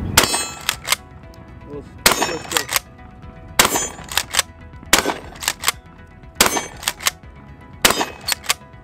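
TriStar Cobra III Marine 12-gauge pump shotgun firing six shots, about one every second and a half. Each shot is followed by a couple of shorter, quicker clacks.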